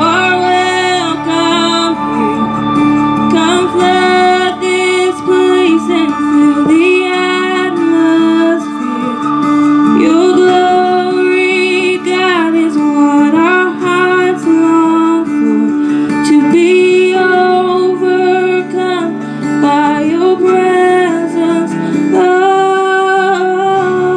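A woman singing a gospel worship song into a microphone, her melody wavering and sliding between held notes, over sustained electronic keyboard chords, all heard through a PA speaker.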